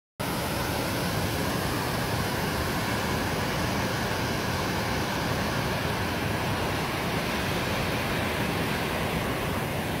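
Bronx River waterfall: water pouring over a low weir and churning into white water below, a steady, unbroken rush.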